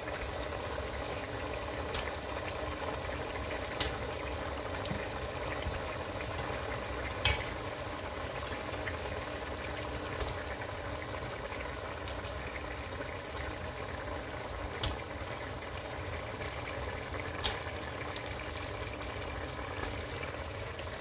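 Rice cooking in tomato sauce in a pan, bubbling steadily at a simmer, with a few short sharp clicks now and then as pieces of fried fish are laid in.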